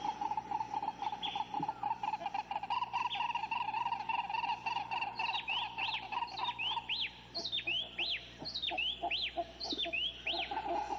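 Forest wildlife ambience: a steady, pulsing chorus of insects or frogs, with a bird calling over it in the second half in a quick run of whistled notes that swoop down and back up.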